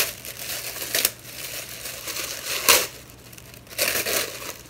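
Tissue paper gift wrapping crinkling and rustling as it is handled and pulled apart, in a series of uneven bursts, the loudest about two-thirds of the way through.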